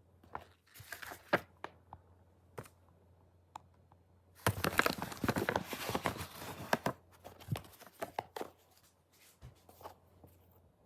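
Packaging being handled and unwrapped: scattered taps and rustles, then a dense stretch of wrapping crinkling and tearing starting about four and a half seconds in, thinning out to a few rustles after about seven seconds.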